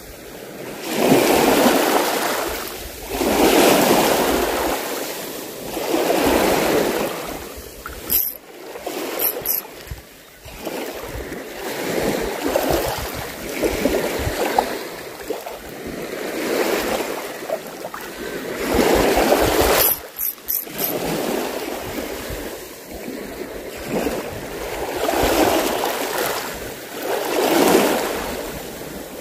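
Sea waves washing onto the shore, the wash swelling and fading every few seconds. A few brief clicks come twice, near the middle and about two-thirds of the way through.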